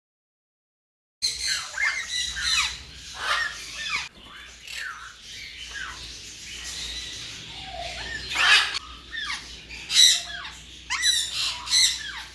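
Parrots squawking and whistling: a string of short harsh calls and rising and falling whistles, after about a second of dead silence at the start.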